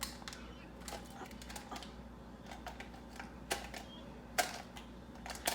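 Scattered light clicks and taps, irregularly spaced, from a plastic pomegranate-seed container and its lid being handled.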